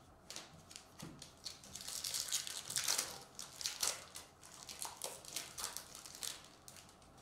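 Foil wrapper of a Topps baseball card pack crinkling and crackling as it is torn open by hand, in a run of uneven bursts that are loudest about three seconds in.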